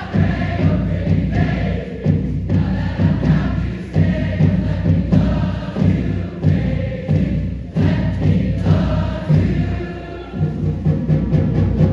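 A choir singing over loud music, with heavy drum hits recurring through it.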